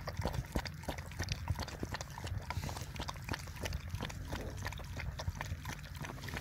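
A dog lapping liquid from a shallow plastic dish: quick wet tongue clicks, about three or four a second and fairly irregular, over a low steady hum.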